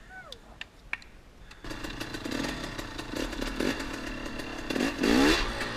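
2014 KTM 250 XC-W two-stroke dirt bike engine, low at first, then revving hard from about a second and a half in as the bike rides off, with a sharp climb in revs near the end.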